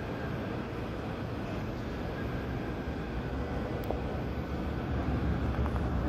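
Jet airliner engines, a steady low rumble muffled by the terminal glass, growing a little louder near the end.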